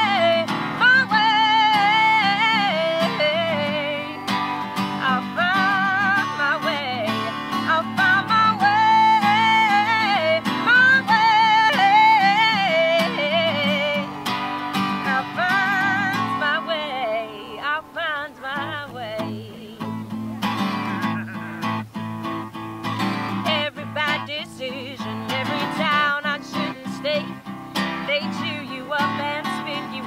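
A woman sings a country song to her own strummed acoustic guitar. A little past the middle the voice pauses for a few seconds, leaving the guitar alone, before the singing resumes.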